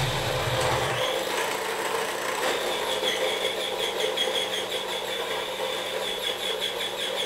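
Small electric mini food chopper running steadily, its blade chopping boiled chicken breast. The deep low hum drops away about a second in as the meat breaks up, and a higher whine with a quick flutter comes in a little later.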